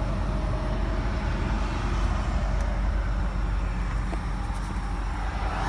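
Steady low background rumble with a faint steady hum, like traffic or an idling vehicle.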